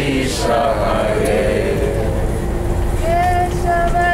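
Devotional kirtan chanting by a group of voices in a moving bus. The group voices fade after about a second and a half, and a single voice takes up a melody near the end over a steady held note, with the low rumble of the bus engine and road throughout.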